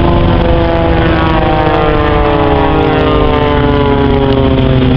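Light propeller-driven aerobatic plane flying past, its engine note falling steadily in pitch.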